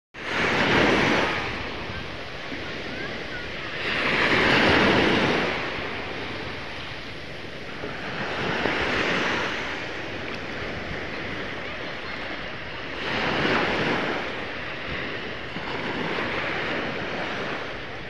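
Small waves washing in over sand at the water's edge, the surf swelling and falling back about every four seconds.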